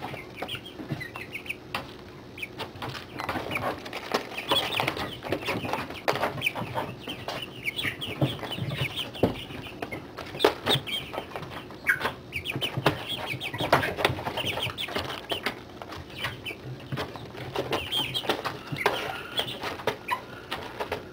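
A brood of 40-day-old chicks peeping and chirping continuously in short, high calls, with scattered sharp taps among them.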